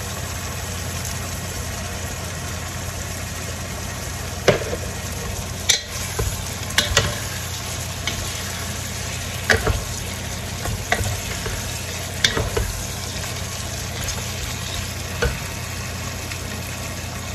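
Pork sizzling steadily in a pan of soy sauce and vinegar, with a cooking utensil knocking against the pan now and then as it is stirred, about eight sharp clicks in all.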